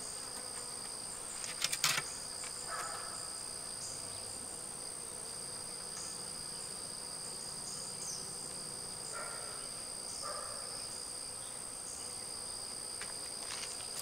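Steady, high-pitched drone of an outdoor summer insect chorus, at two pitches, with a brief cluster of clicks and knocks about two seconds in.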